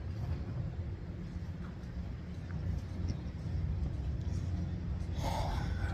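Steady low rumble of distant road traffic outdoors, with a brief rustle near the end.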